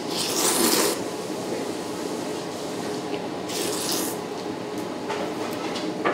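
A person slurping cold buckwheat soba noodles: a long hissing slurp in the first second and another about three and a half seconds in, with softer slurping between.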